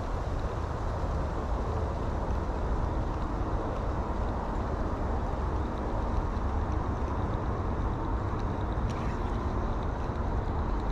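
Wind buffeting the microphone: a steady, fluttering rumble with a hiss over it. A few faint ticks sound about nine seconds in.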